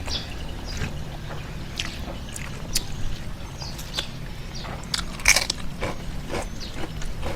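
Close-miked eating of fish curry: wet chewing and lip-smacking, with scattered short clicks and one louder smack a little past halfway.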